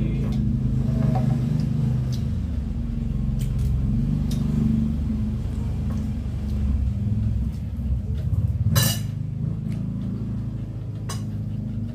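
A low, steady rumble, with a sharp clink of cutlery against dishes twice near the end.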